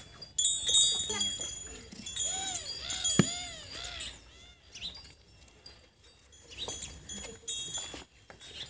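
Brass bells on a bullock's neck ringing as it moves its head, in the first second and a half and again faintly later. About two to four seconds in, a quick series of high rising-and-falling animal calls.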